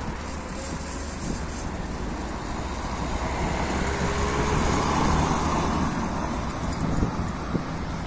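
Wind buffeting the microphone and tyres rolling over rough asphalt while riding along a street: a steady rumble that swells around the middle and eases off, with a few small knocks near the end.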